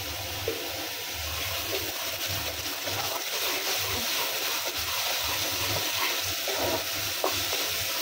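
A spice paste frying in oil in a kadai, sizzling steadily, with a wooden spatula scraping and stirring it around the pan. The paste is being fried down until it dries and the oil separates.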